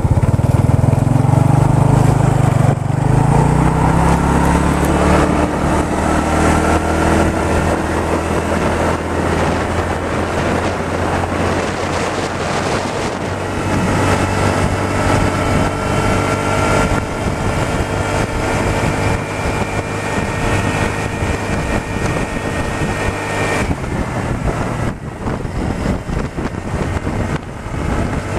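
Motorcycle engine pulling away and accelerating, its pitch climbing with a break about three seconds in, then running at a steady cruise. Later the pitch rises slowly and drops back suddenly a few seconds before the end.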